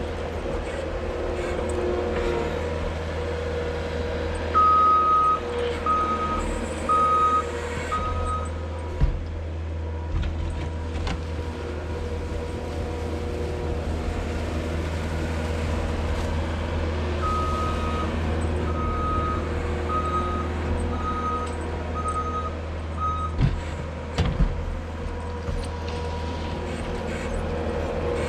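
New Holland L220 skid steer's diesel engine running steadily under load while plowing snow, with its backup alarm beeping as it reverses: four beeps about five seconds in, then six more later on. A few short knocks come from the machine and its blade.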